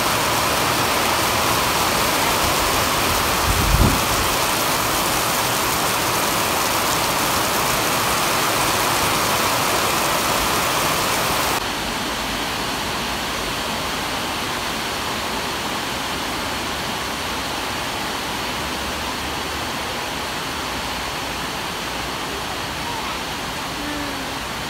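Steady heavy rain falling on a concrete yard, a continuous hiss. About halfway in, the rain turns softer and duller. A brief low thump comes about four seconds in.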